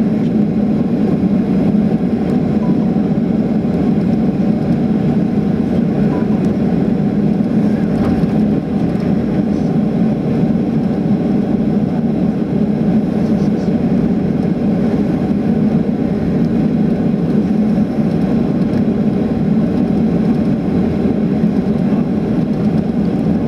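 Steady cabin noise of a Boeing 737-700 taxiing, heard inside the cabin over the wing: the low, even hum of its twin CFM56 engines at taxi power mixed with rumble from the airframe rolling on the taxiway.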